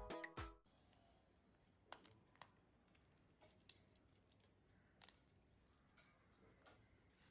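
Background music with a beat cuts off under a second in, leaving near silence with a few faint, scattered small clicks and taps.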